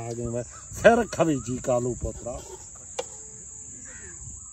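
Insects chirring in a steady, high, even tone throughout, under a man's voice talking for the first two and a half seconds; a single sharp click about three seconds in.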